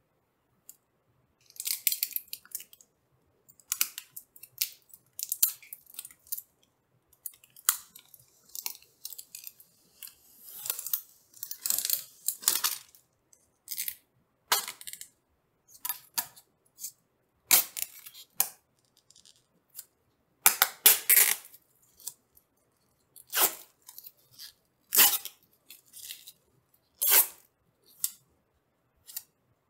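Protective plastic film being peeled off a graphics card in a string of short, irregular pulls with brief pauses between them.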